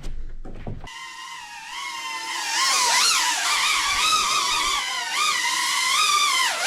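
Cinebot 30 FPV cinewhoop drone's motors starting with a sudden whine about a second in, then whining as it flies, the pitch rising and falling with the throttle and growing louder a couple of seconds in.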